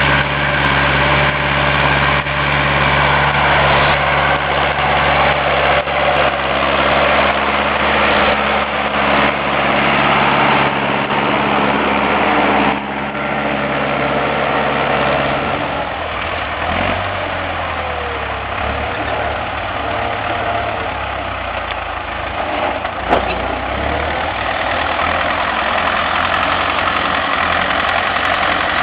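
Ursus C-355 tractor's three-cylinder diesel engine running steadily. About 13 seconds in it gets quieter, and a few seconds later its low engine note changes.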